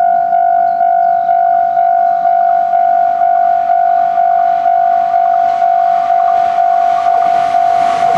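Japanese railway level-crossing warning bell ringing, a steady electronic ding repeating about twice a second, signalling that a train is approaching.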